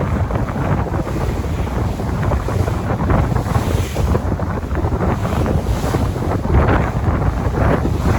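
Sea surf washing in continuously, with strong wind rumbling on the microphone.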